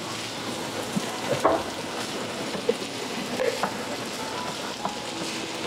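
Food frying in a pan on the stove, a steady sizzling hiss, with a few light knocks about a second and a half and three and a half seconds in.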